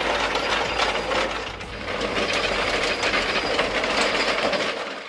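Wolf DWT-630 dewatering trencher at work: a dense, steady mechanical clatter over a low rumble. It dips briefly after about a second and a half, then cuts off suddenly at the end.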